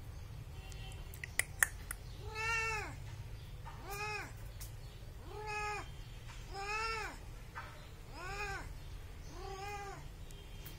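A cat meowing six times, about every one and a half seconds, each meow rising and then falling in pitch. Two sharp clicks come just before the first meow.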